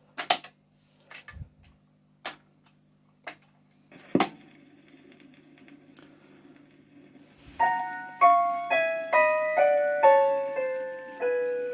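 A few sharp clicks and knocks from the Dansette record player over a faint steady hum, as the record is changed, then about two-thirds of the way through a descending run of piano notes, each ringing out, played from a record through the player's own speaker.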